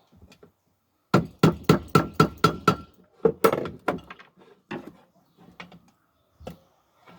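Metal cookware being knocked: a quick run of about seven sharp strikes, around four a second, each with a ringing tone. A few heavier knocks follow, then scattered lighter clanks.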